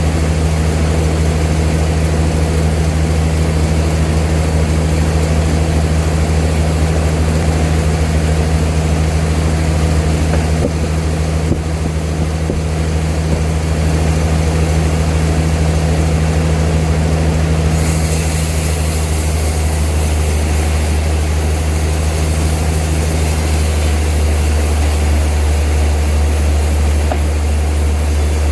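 Old sawmill machinery running with a steady low drone. About two-thirds of the way through, a higher hiss joins in and continues.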